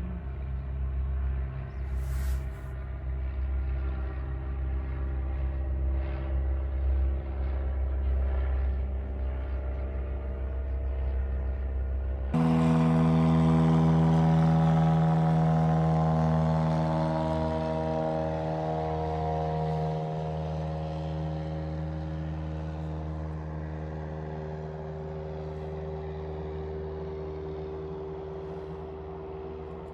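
Vehicle engine running with a steady low hum; about twelve seconds in it cuts abruptly to a louder, higher engine drone whose pitch drifts slowly as it fades a little.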